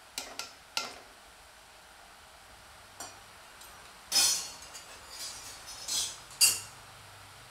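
A metal ladle clinking a few times against a cast-iron kadai, then three short, louder bursts of sizzling as pieces of murukku dough are slid into hot oil, over a faint steady frying hiss.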